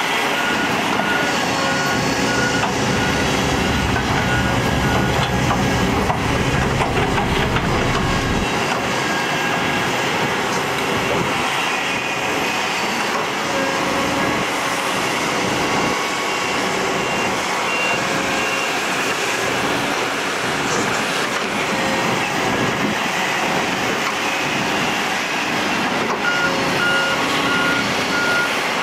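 Diesel engines of heavy earthmoving machines, padfoot soil-compactor rollers and dump trucks, running together, with a deep rumble that eases about eight seconds in. A reversing alarm beeps in short runs near the start, in the middle and near the end.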